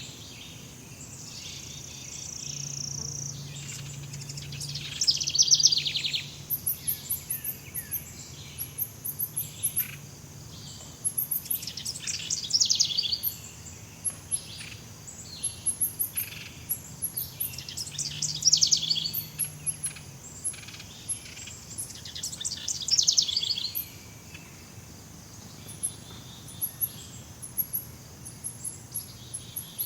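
Jungle ambience: a bird gives a loud, rapid trilling call about every five to six seconds over a steady high insect hum, and from about seven seconds in there is a fast series of very high, short insect chirps.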